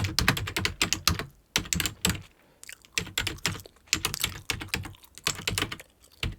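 Computer keyboard being typed on in quick bursts of key clicks with short pauses between them, as data is entered.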